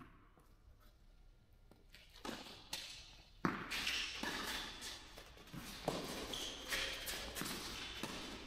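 Tennis rally on a clay court: racquets striking the ball and the ball bouncing, with shoes scuffing on the clay between shots. Fairly quiet for the first two seconds, then the hits begin, the sharpest about three and a half seconds in.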